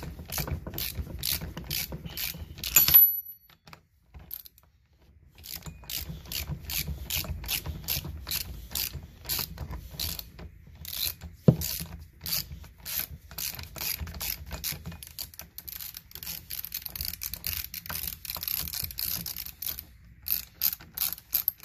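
Ratchet wrench clicking steadily, about three clicks a second, as it spins a transmission pulley nut off. There is a short pause about three seconds in and a single sharp knock about halfway through.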